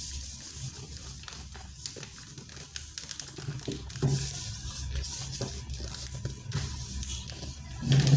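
Paper pattern rustling and crinkling as it is folded and smoothed flat by hand onto fabric, in short irregular strokes, with faint music underneath.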